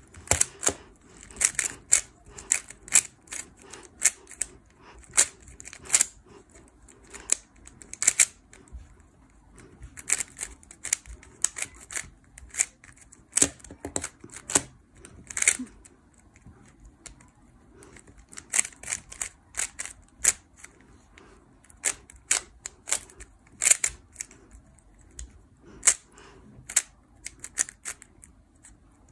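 Yulong V2 Magnetic stickerless 3x3 speedcube being turned by hand, its plastic layers clicking sharply in quick, irregular clusters.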